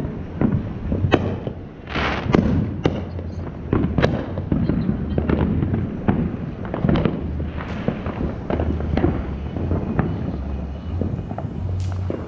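Fireworks and firecrackers going off all around, an irregular string of sharp bangs and pops, some echoing, with a low hum coming and going underneath.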